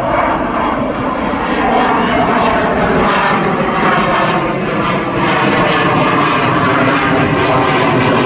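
A fixed-wing aircraft flying over, its engine noise loud and continuous.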